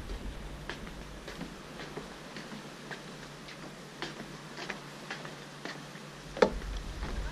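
Footsteps on the wooden planks of a pier: light, sharp clicks at walking pace, about two a second, with one louder knock near the end. Wind rumbles on the microphone at the start and again near the end.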